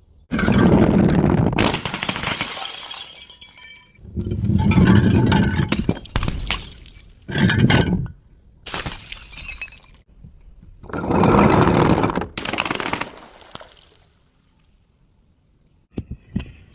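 Glass bottle breaking: several loud bursts of shattering and crunching glass, then a lull and a few faint clinks near the end.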